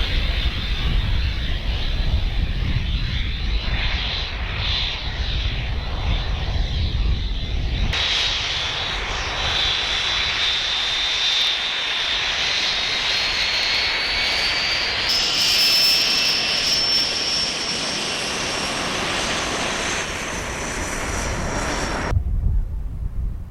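Aircraft engine running with a high whine that slowly rises in pitch, broken by several abrupt cuts. Low wind rumble on the microphone in the first part.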